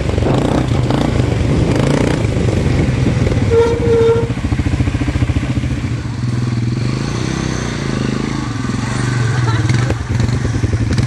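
Quad-bike (ATV) engine running on a dirt track, easing off in the middle and picking up again near the end, with a brief high tone about four seconds in.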